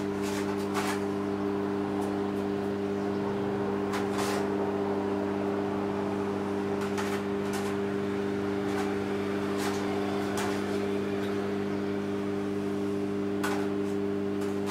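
Steady low electrical hum from a running kitchen appliance, with a few light clicks of a fork against a pan.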